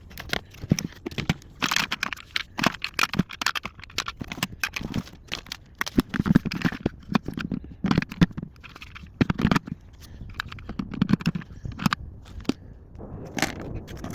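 Things being handled: irregular clicks, knocks and crinkling, with a few duller thumps. No motor is running.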